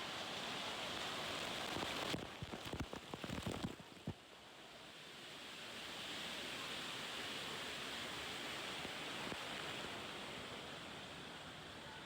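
Rushing water of a water-park rapids ride, a steady wash, broken about two seconds in by a couple of seconds of splashing and knocks.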